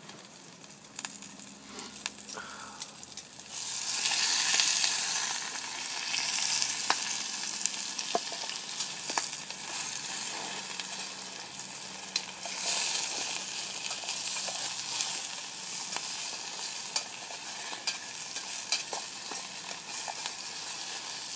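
Sliced potatoes, onion and garlic sizzling in a mess tin over hot coals, the sizzle getting louder about four seconds in, with scattered light clicks.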